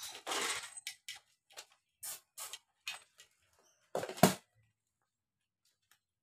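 Sharp clicks and rattles of a wire pet cage and a metal food bowl as cats eat dry food and move about, one every half second or so, with the loudest clank about four seconds in.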